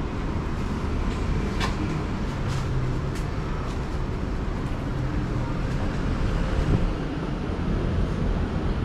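Steady street traffic noise with a low rumble, with a few short clicks.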